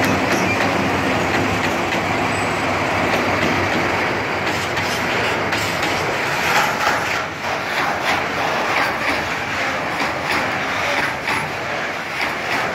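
TCDD DE 24000-class diesel-electric locomotive running as it passes, followed by flat and tank wagons rolling by. From about five seconds in, the wheels clack over the rail joints in an uneven series of knocks.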